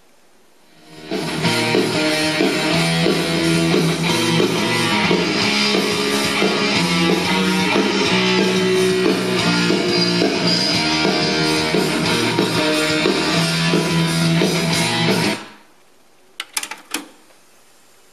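Guitar music played back from cassette on a Technics RS-TR170 double cassette deck. It fades in about a second in and stops abruptly near the end, followed by a few short clicks and a faint hiss.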